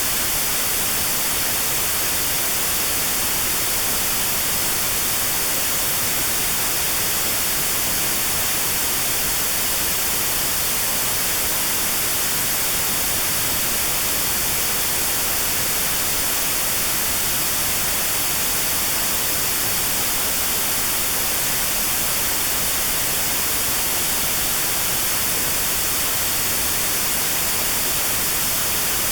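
Steady white noise with a narrow band near 4 kHz removed: notched noise for tinnitus sound therapy. It is an even hiss, brightest in the treble, and it does not change.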